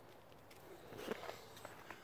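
Faint footsteps on concrete, a few soft steps about a second in.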